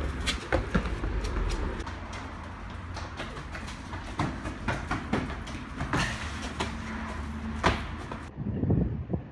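Irregular knocks and footfalls on concrete over a low rumble of wind on a phone microphone.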